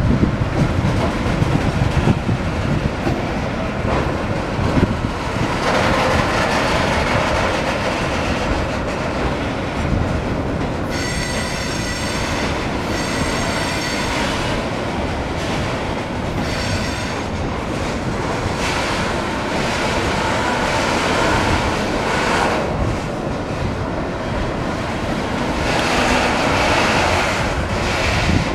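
Wagons of a slow mixed freight train (tank cars and container flats) rolling past: a steady rumble and clatter of steel wheels on the rails. A high-pitched wheel squeal comes in a few short spells around the middle.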